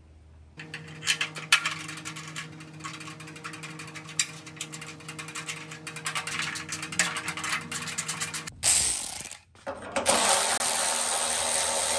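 Cordless electric ratchet running: a short burst about eight and a half seconds in, then a longer steady run from about ten seconds as it drives a bolt through a radiator bracket. Before that, a run of light metal clicks and knocks from handling the brackets, with background music.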